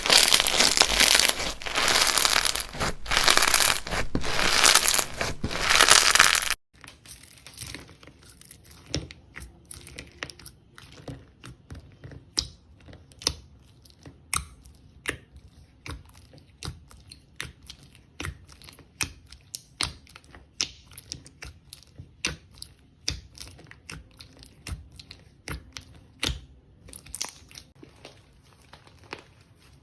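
Slime being squished and stretched by hand. For the first six seconds or so there is a loud, dense crinkling crackle; then, after an abrupt cut, a quieter slime gives irregular sharp pops and clicks.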